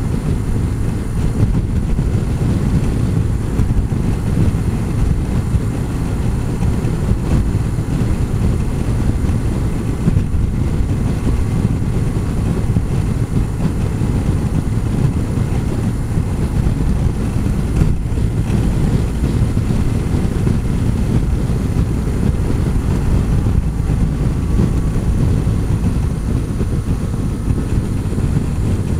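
Steady wind and road rumble on the microphone of a touring motorcycle at road speed, with the bike's engine running under it.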